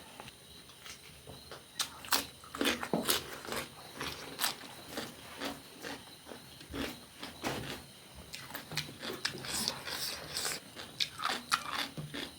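A person chewing and biting food close to the microphone: irregular wet clicks and crunches from the mouth.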